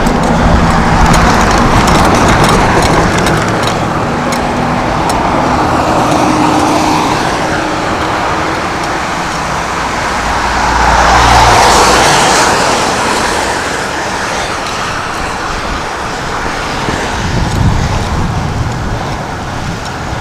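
Road traffic noise, with vehicles passing; the loudest pass swells up and fades about eleven seconds in.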